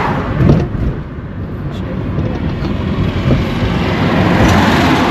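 A moving car's road and wind noise, a steady rumble that swells about four seconds in.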